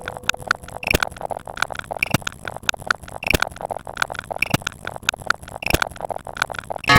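A repeating sound effect of sharp clicks in a steady loop, a strong click about every 1.2 seconds with lighter clicks between.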